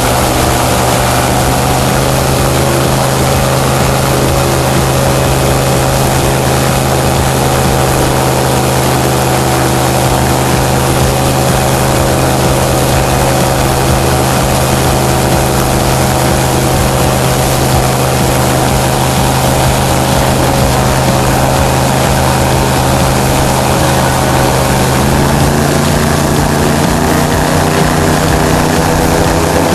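Propeller wind machine running steadily at high power, a loud engine-and-propeller drone with a rush of blown air, producing gale-force wind for a tent wind test. Its pitch shifts slightly near the end.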